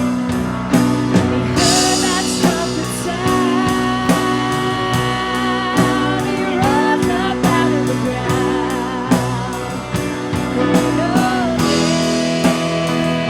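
Live worship band playing a song: a singer over guitar and a steady drum beat.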